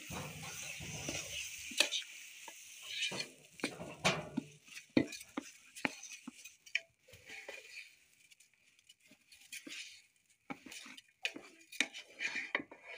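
Wooden spoon stirring pilau rice in a large aluminium pot, with irregular scrapes and knocks against the pot. A light sizzle from the pot fades out about halfway through.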